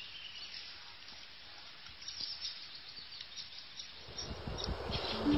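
Quiet outdoor ambience with short, faint, high-pitched chirps from birds and insects. In the last second or so a low swell rises as music fades in, with held notes starting right at the end.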